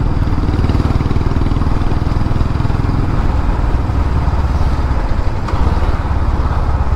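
Royal Enfield single-cylinder motorcycle engine running at a steady cruise while the bike is ridden, its exhaust pulsing fast and even.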